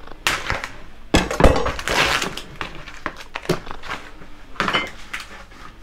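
Kitchen prep handling: food packaging being opened, crinkling and tearing, with scattered knocks and clatter on the worktop and pans.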